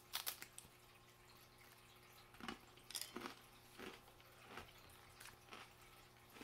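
A bite into a crisp Finn Crisp rye thin at the start, then faint crunchy chewing in short bursts about every half second.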